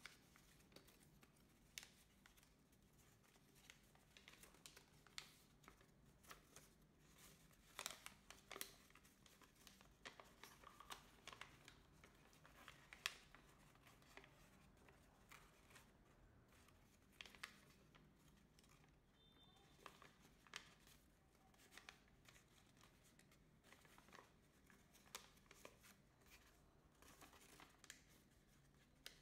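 Faint crinkling and crackling of a folded sheet of colour paper as it is pinched and creased by hand, heard as scattered short clicks.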